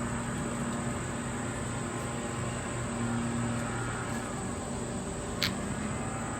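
Steady low hum and hiss, with one short click about five and a half seconds in.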